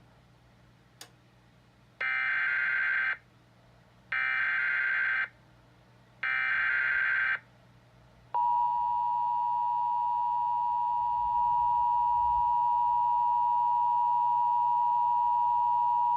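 Emergency Alert System alert tones: three SAME digital header bursts of raspy, buzzing data, each about a second long with about a second between them. These are followed by the two-tone EAS attention signal, held steady for about eight seconds, which marks the start of a new alert. A faint click comes about a second in.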